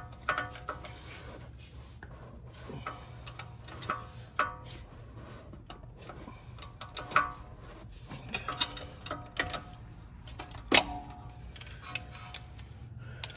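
A steel screwdriver prying and scraping at the front brake pad wear sensor and caliper. It makes irregular clicks and scrapes and metallic clinks that ring briefly, with the sharpest clink about eleven seconds in.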